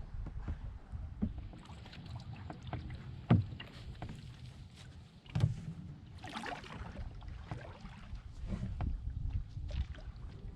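Canoe being paddled: paddle strokes swishing through the water, with scattered knocks of wood against the hull, two sharper ones about three and five seconds in, and wind rumbling on the microphone.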